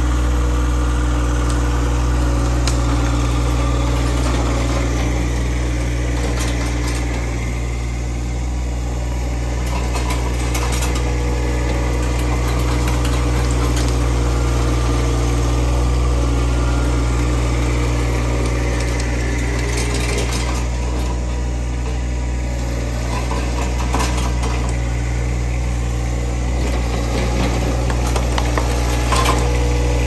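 John Deere subcompact tractor's diesel engine running steadily while it pulls a homemade roller crimper through thick vegetation, with a few sharp knocks near the end.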